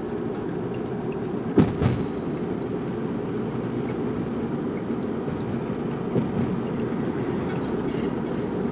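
Steady low rumble of road and engine noise inside a moving car's cabin. Two sharp knocks come about a second and a half in, and a lighter one later on.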